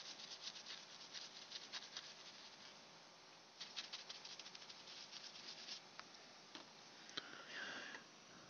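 Faint, quick scratching strokes as flux is scrubbed off a circuit board around freshly soldered parts, in two spells of a couple of seconds each, then a few scattered light ticks.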